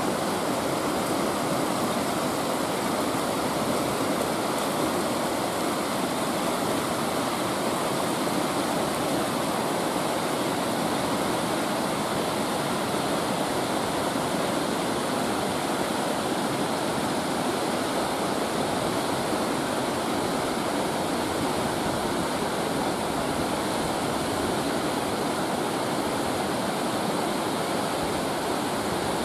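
Whitewater rushing and splashing over boulders in an icy mountain stream: a steady, unbroken rush.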